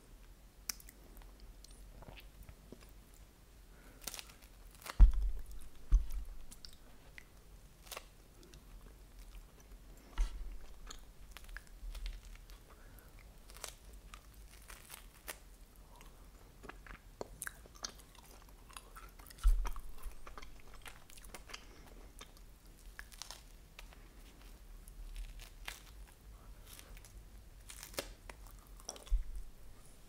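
Close-miked biting and crunching chews of a wafer ice-cream cone filled with chocolate ice cream, with crackles and clicks of the wafer breaking. A few low thumps stand out, the loudest about five seconds in and again just before twenty seconds.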